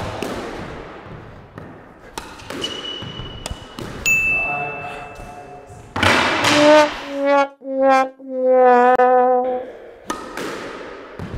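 A few sharp squash-ball knocks ring in the court. Then a brass sad-trombone sting plays: four notes stepping down, the last held long with a waver, a comic sound effect marking a failed attempt.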